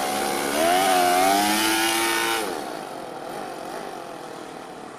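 Toyan FS-L200 two-cylinder four-stroke nitro engine in an RC pickup truck, revving up about half a second in and holding, then dropping off after about two and a half seconds and fading as the truck drives away. The engine is new and still being run in on its first tanks.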